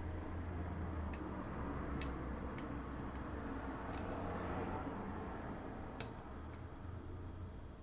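Scattered light, sharp clicks at uneven intervals, the kind made by small tools and phone parts being handled during a repair on a workbench, over a steady low hum.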